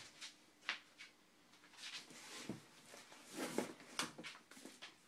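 Faint handling noise of hardcover cookbooks: soft rustling and a few light knocks as one book is put into a box and the next is picked up.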